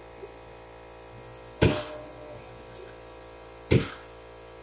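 Two sharp knocks of hard objects, about two seconds apart, over a steady electrical hum.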